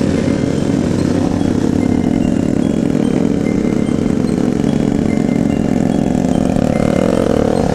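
Motorcycle engine running at a steady, easy riding speed, heard from the rider's own bike, with other motorcycles riding close alongside.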